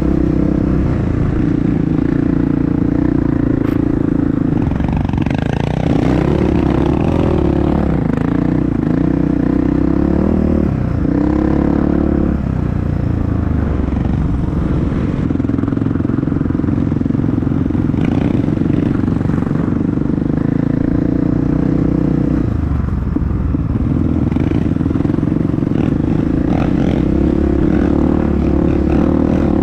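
Honda CRF dirt bike engine running under a rider on a rough trail. The engine note holds mostly steady, with repeated throttle changes shifting its pitch about five to twelve seconds in and again a few seconds before the end, with clatter over the bumps.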